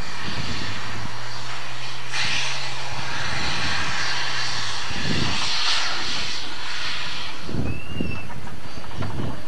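Shay geared steam locomotive working past with a passenger coach: a loud rushing hiss swells for several seconds, with a low steady hum in the first half, then a few heavy exhaust chuffs from the stack in the second half.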